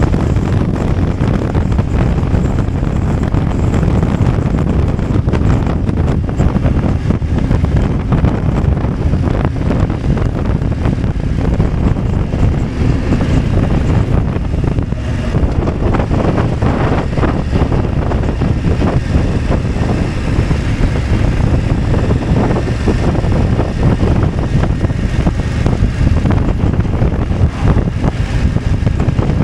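Wind noise on the microphone over the running engine and road noise of a BMW F 850 GS parallel-twin motorcycle being ridden. It is a steady, dense rumble with no clear changes.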